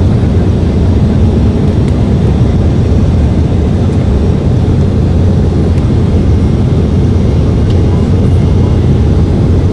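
Airliner noise: a steady, loud low rumble of engines and airflow with no change in pitch.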